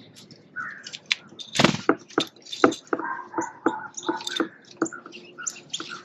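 Backyard songbirds chirping, with a run of sharp knocks about three a second starting about a second and a half in; the first, a noisy burst, is the loudest.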